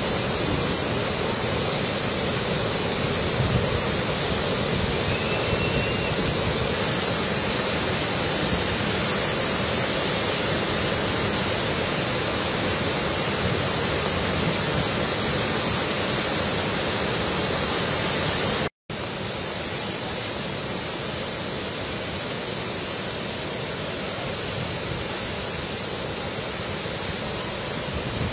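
Floodwater of a swollen river rushing over a broad rocky waterfall, a steady, even sound of falling water. It breaks off for an instant about two-thirds through and carries on a little quieter.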